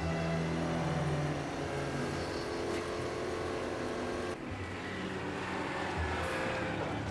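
Citroën Méhari's air-cooled flat-twin engine running steadily as the car drives along. The sound changes abruptly about four and a half seconds in.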